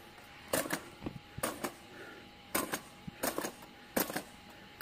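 Hand-operated jab-type corn fertilizer applicator clacking in quick double clicks, about one pair a second, as it is jabbed into the soil and lifted. The clacks come from its dispensing mechanism releasing fertilizer straight into the ground.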